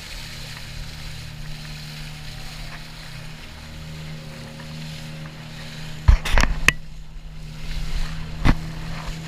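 Small fishing boat's engine running steadily under way, a constant low hum with water and wind noise over it. A few sharp knocks cut through about six seconds in and again near the end.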